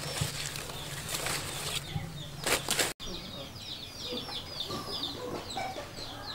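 Chicks peeping in a long run of short, high, falling chirps, several a second, which begins about halfway through. Before that come a few short scraping clatters.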